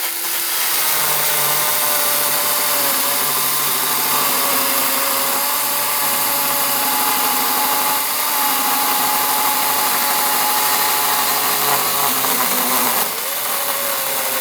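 Kobalt 24-volt battery electric chainsaw running steadily under load, its chain cutting into a dead tree trunk. The motor's whine wavers slightly in pitch as it cuts, and eases a little near the end.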